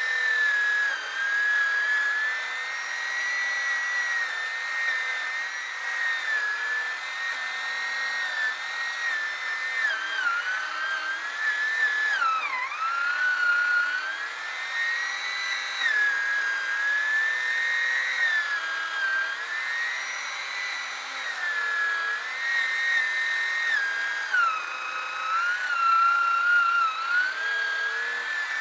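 Chainsaw running at high revs while cutting a large log into firewood rounds. Its pitch wavers as the bar works through the wood, drops sharply about twelve seconds in as the saw bogs down under load, and sags again for a few seconds near the end.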